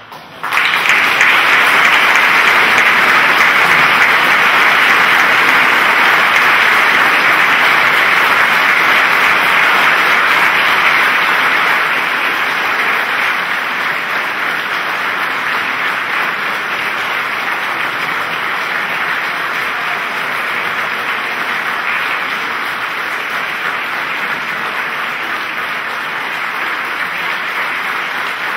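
Concert audience applauding. The clapping breaks out suddenly about half a second in, out of near silence, and carries on as a dense, steady patter that eases a little after about twelve seconds.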